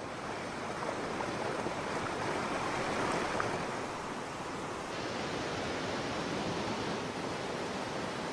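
Steady rush of fast-flowing river water, with a slight shift in tone about five seconds in.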